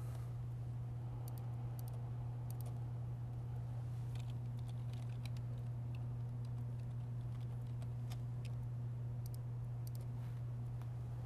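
A steady low hum with scattered light clicks, a few irregular taps at a time.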